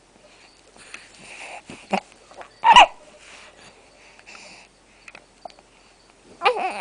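Hiccups: short, sudden squeaky hics. The loudest comes a little under three seconds in, with a smaller one just before it and another near the end. Soft breathing noise fills the gaps.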